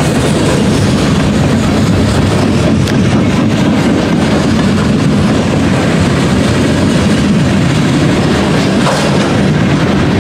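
Lumber-loaded centerbeam flatcars of a freight train rolling past: a loud, steady rumble of steel wheels on the rails.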